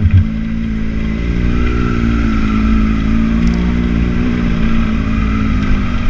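Suzuki V-Strom 650's V-twin engine running at fairly steady revs while pulling up a dirt trail, the pitch drifting gently up and down, with wind noise over it.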